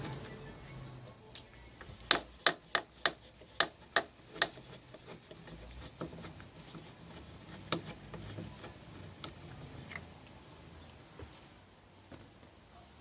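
A quick string of sharp clicks, about eight in a row a couple of seconds in, then scattered lighter clicks and rubbing from hand tools and parts being worked on.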